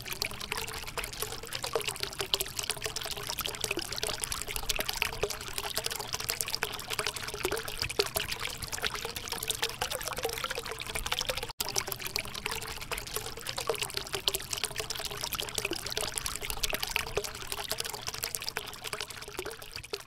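Small tabletop cement fountain running: thin streams of water pouring from spouts into bowls and into the basin below, a steady trickle and splash. The sound breaks off for an instant about halfway through.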